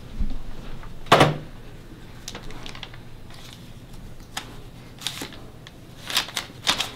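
Sheets of paper being shuffled and flipped through by hand on a desk: a series of short crisp rustles and snaps, the sharpest about a second in and a cluster near the end.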